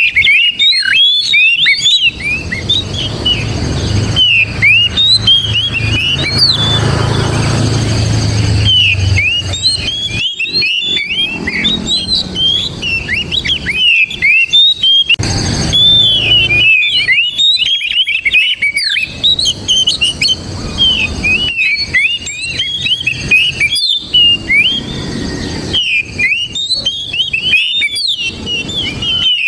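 Oriental magpie-robin (kacer) singing a rapid, continuous stream of short high whistles and chirps. A low rumble sits underneath for a few seconds early on and again briefly in the middle.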